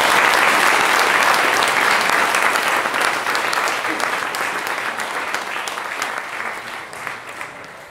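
Audience applauding, a dense patter of many hands clapping. It is loudest at the start and dies away gradually.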